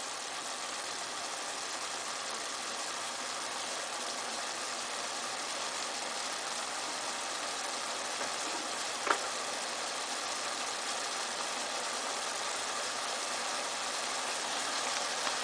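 Salmon and frozen vegetables sizzling in an oiled pan over medium-high heat: a steady hiss that grows slightly louder, with a single light click about nine seconds in.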